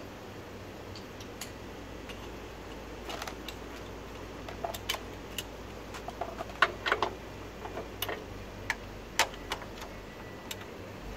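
Irregular metallic clicks and clinks of hand tools being handled, a socket and wrench picked up and fitted together, densest about two-thirds of the way through.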